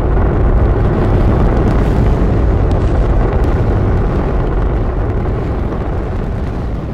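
The Saturn V's five F-1 rocket engines firing at liftoff: a loud, continuous rumbling noise, heaviest in the deep bass, swelling in the first moment and easing a little toward the end.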